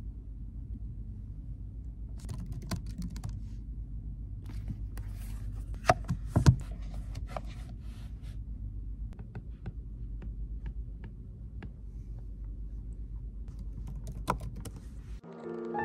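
Typing on a laptop keyboard: scattered soft key clicks over a steady low room hum, with a couple of louder knocks about six seconds in. Piano music comes in right at the end.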